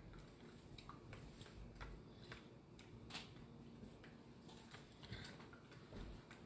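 Faint, irregular clicking of a metal fork against a plastic tray as eggs are beaten, about two or three ticks a second.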